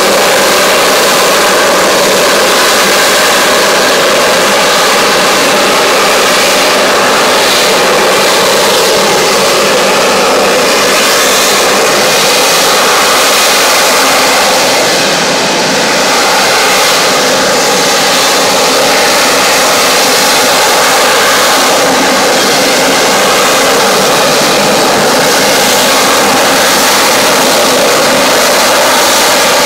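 US Marine Corps AV-8B Harrier jump jet's Pegasus turbofan, loud and steady as the jet hovers, with a slight dip in level about halfway through.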